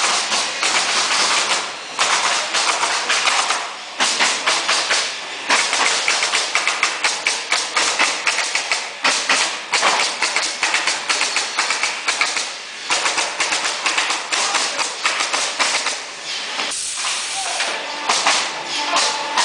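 BeA modular pneumatic nailers on a pallet-nailing table firing in quick runs: a dense clatter of nail shots with hissing air, breaking off briefly every few seconds.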